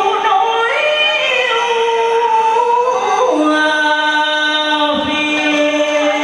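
Vọng cổ melody played on a solo guitar: long held notes joined by smooth pitch slides, over a backing track.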